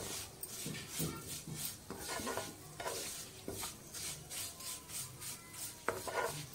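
A spoon stirring fine vermicelli frying in ghee in a pan. It scrapes in regular strokes, about three a second, over a light sizzle.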